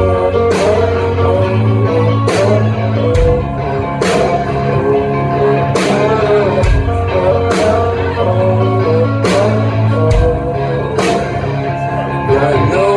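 Rock band playing live: electric guitars, bass and drums in a loud, dense mix, with sharp drum hits at a steady pace.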